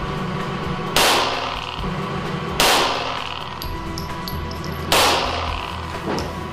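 Three 9mm full metal jacket gunshots fired at film-coated glass, about one, two and a half and five seconds in, each a sharp crack with a ringing tail, over background music.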